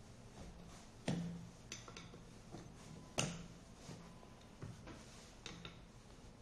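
A screwdriver knocking and clicking against a scooter wheel's hub and tire as the tire bead is levered on: two sharper knocks about a second and three seconds in, with lighter clicks scattered between.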